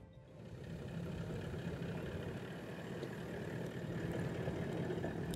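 A vehicle's engine running steadily with a low hum, fading in at the start and growing louder through the first few seconds.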